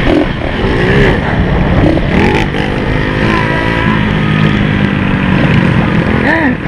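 Small motorcycle engine running under way on a dirt track, loud and close. The engine note holds steady for a stretch about halfway through, with a few short rises and falls in pitch around it.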